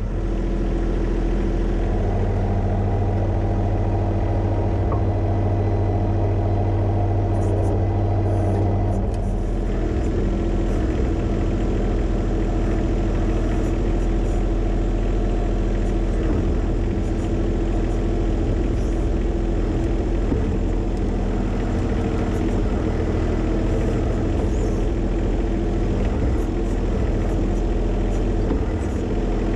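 John Deere 1025R compact tractor's three-cylinder diesel engine running steadily; its note shifts about nine seconds in.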